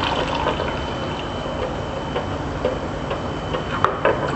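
Water being poured from a glass bowl into a clay cooking pot of sautéed onions, chillies and spices, a steady pouring and splashing.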